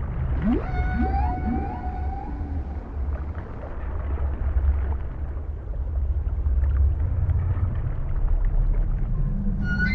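Recorded whale song over a steady low underwater rumble. Rising moans come about half a second in, leading into a held, wavering higher call, and another high, wavering call begins near the end.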